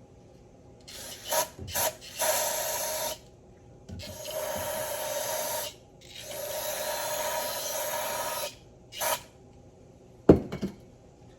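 Several bursts of steady hiss, like a spray or air nozzle, the longest about two and a half seconds, with short puffs between them. A sharp clack comes near the end.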